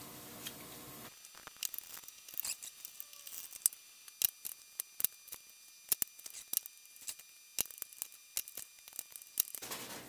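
Irregular sharp clicks and ticks of hands handling electrical wire, with the metal strands of the power cord's conductors rattling and snapping against each other as they are pulled apart and twisted.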